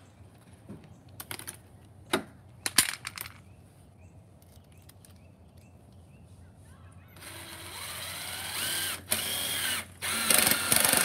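Cordless drill driving screws into a pressure-treated wooden frame: the motor winds up rising in pitch about seven seconds in, then runs in several short loud bursts near the end. A few light knocks from handling the wood and screws come earlier.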